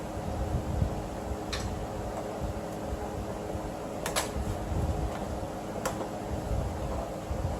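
A few sharp clicks and taps of plastic door trim being handled as a panel clip is worked loose, over a steady low hum.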